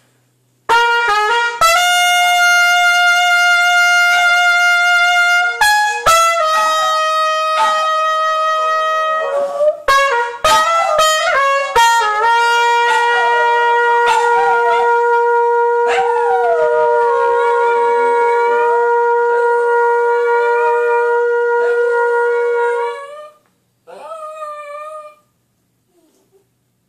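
Trumpet playing long held notes while a dog howls along, its wavering howl rising and falling over the steady notes. Near the end the trumpet stops and the dog gives one more short howl.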